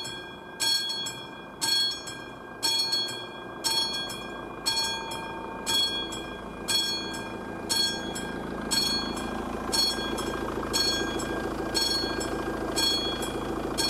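AŽD 71 level-crossing warning bell, the classic electromechanical bell, striking about once a second while the crossing is active for an approaching train. Each strike rings on briefly. A low mechanical noise grows louder from about halfway.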